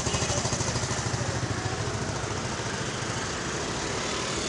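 A small engine running at idle with an even throb of about eight pulses a second, the pulsing fading over the first few seconds, over a steady wash of street noise.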